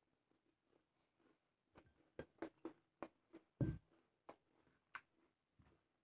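Faint, quick wet clicks and smacks of eating rice by hand: chewing with the mouth and fingers mixing rice on the plate. One louder soft thump comes about halfway through.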